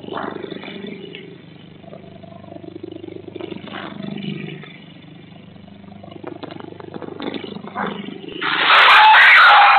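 A dog yelping and screaming loudly as a big cat seizes it, starting suddenly about eight seconds in, over a low steady hum from the security camera's microphone.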